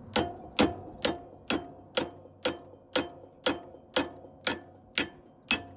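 Hammer striking a broken wheel stud to drive it out of a four-wheeler's steel wheel hub: about a dozen evenly spaced metallic strikes, roughly two a second, each with a short ring.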